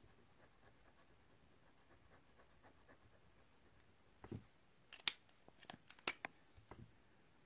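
Faint strokes of a felt-tip marker colouring on cardstock. About four seconds in there is a soft knock, then a quick run of sharp clicks as the marker is lifted away and pens are handled on the desk.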